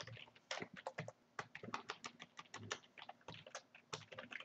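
Faint typing on a computer keyboard: quick keystrokes, several a second and unevenly spaced.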